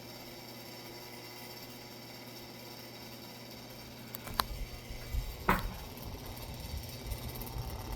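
Mainstays Hugger ceiling fan running with a steady hum. About four seconds in there are two sharp clicks, a louder click a second later, and then a low rumble.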